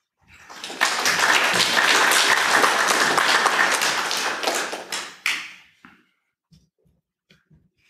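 Audience applauding: the clapping builds quickly, holds for about four seconds, then dies away with a few last claps.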